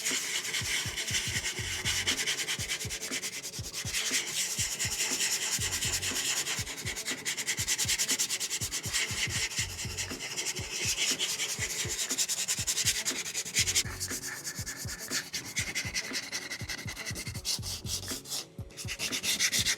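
Coarse 80-grit sandpaper scuffing a car's primed and bare-metal body panel in quick, repeated back-and-forth strokes, roughing the surface so body filler will adhere. The strokes pause briefly near the end.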